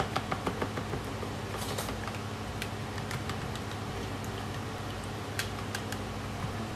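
Light metal clicks of a teaspoon tapping and scraping against a small glass dish and a mixing bowl, several quick ones at first, then a few scattered, over a steady low hum.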